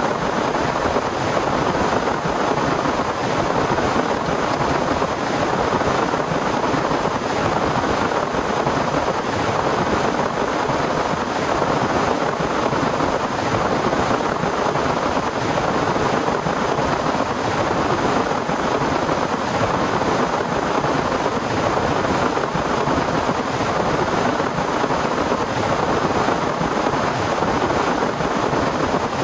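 Torrential rain pouring down without let-up: a loud, dense, even hiss.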